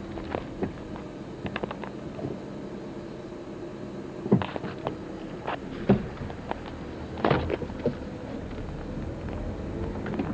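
A few sharp knocks and thuds, the loudest about four, six and seven seconds in, among smaller clicks over a low steady rumble.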